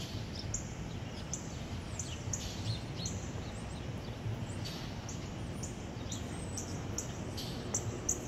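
Outdoor ambience: a steady low background hum with frequent short, high bird chirps throughout.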